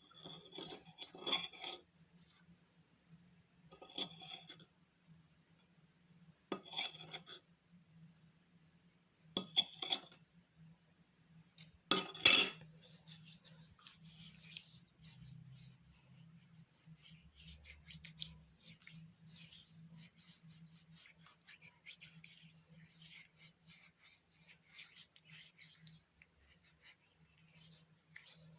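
A spoon clinking and scraping in a bowl of baking soda paste several times, the loudest about twelve seconds in, followed by a long stretch of fine gritty rubbing as the paste is worked into the skin of a hand.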